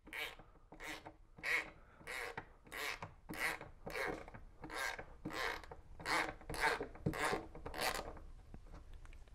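Hand ratchet worked back and forth in short strokes, a short rasp from the ratchet and the turning screw about twice a second, as a Lisle Mortorq size 0 socket grips a stripped Phillips #3 screw head and backs it out of the wood. The strokes stop a little before the end.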